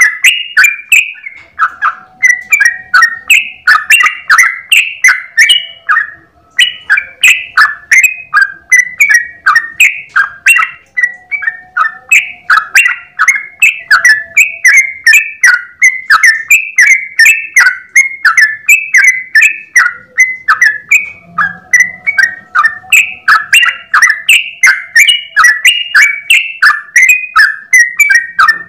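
Yellow-vented bulbul (trucukan) singing a long, unbroken rapid run of bubbly chirping notes, about three to four a second, with one short pause about six seconds in.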